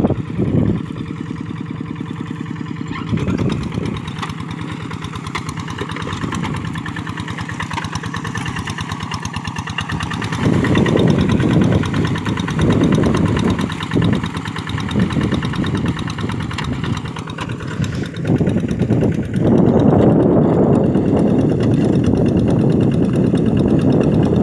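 Kubota RD85 single-cylinder diesel engine on a two-wheel hand tractor running steadily. It grows louder about ten seconds in and again about twenty seconds in.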